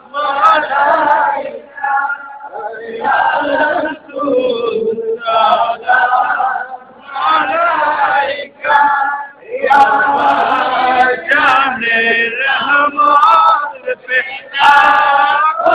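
Men singing a devotional salam to the Prophet Muhammad together, unaccompanied, in sung phrases with short pauses between them.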